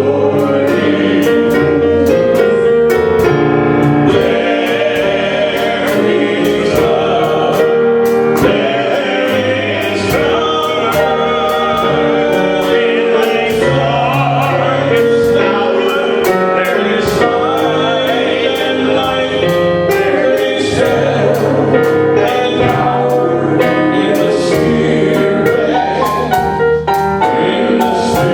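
Gospel music: a choir singing over instruments with a steady beat.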